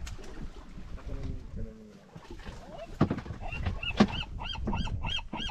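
A bird calling a fast run of repeated high, arched notes, about four or five a second, starting a little past halfway. Two sharp knocks a second apart come around it, and low voices sound in the first two seconds.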